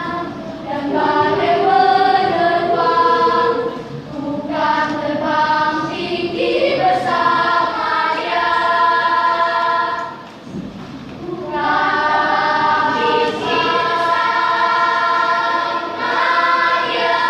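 Elementary school children's choir singing, holding long notes that change every second or so, with a short break about ten seconds in.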